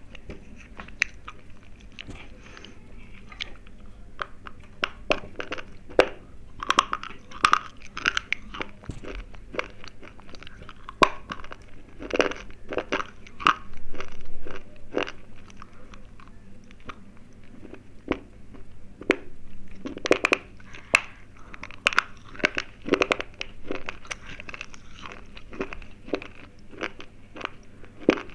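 Slate pencils being bitten and chewed close to the microphone: a long run of sharp, dry crunches at an uneven pace, coming in denser clusters several times.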